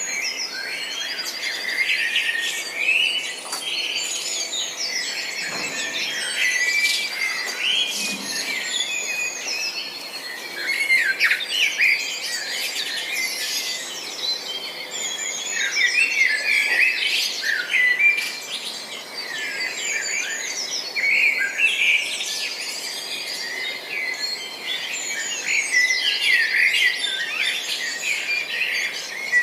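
Several songbirds chirping and singing at once, a dense chorus of short overlapping calls and trills.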